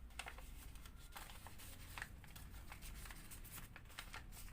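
Sheet of origami paper being handled, folded and creased by hand: faint, scattered rustles and crinkles of paper.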